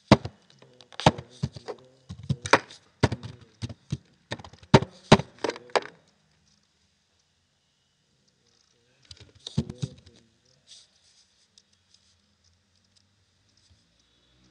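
Computer keyboard keys clacking in a quick run of typing for about six seconds, then a pause and a shorter burst of keystrokes.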